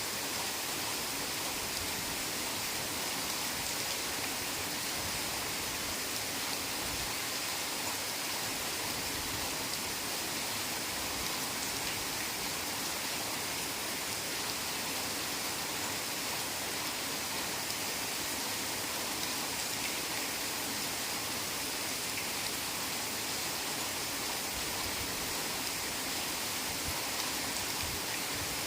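Steady heavy rain falling through forest foliage, an even hiss of many drops without let-up.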